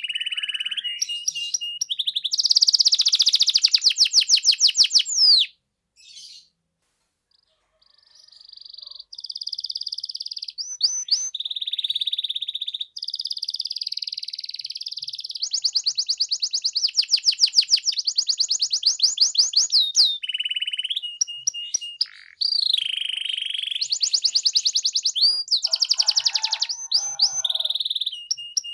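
Domestic canary singing a long, continuous song of rapid trills and rolls, fast repeated high notes shifting from one phrase to the next. The song breaks off for about two seconds near the first quarter, then resumes.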